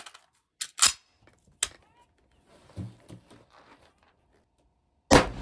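Ruger Mini-14 Ranch Rifle being handled, with a few sharp metallic clacks about a second in as it is loaded, then one loud rifle shot near the end with its echo trailing off.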